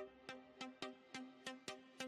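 Background electronic music: a fast, even run of short plucked synth notes, about six a second.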